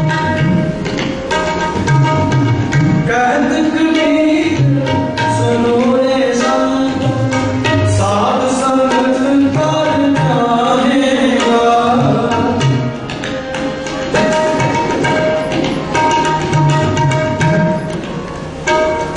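Gurbani kirtan, a Sikh hymn, with tabla playing a steady rhythm under sustained harmonium notes. A voice carries a melodic line that rises and falls through the middle.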